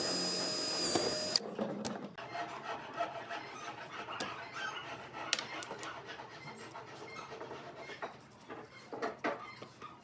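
A power tool runs with a high whine and cuts off suddenly about a second and a half in. Then comes quieter, uneven rubbing and scraping of wood, with a few light knocks.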